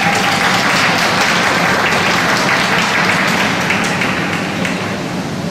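Audience applauding, thinning out after about four seconds.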